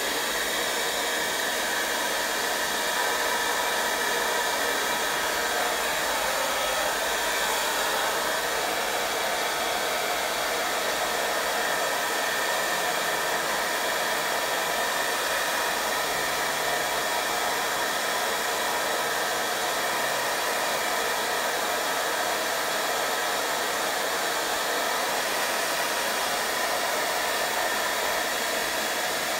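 Handheld hair dryer blowing steadily at the canvas, an even rush of air from a running fan motor, drying wet acrylic paint.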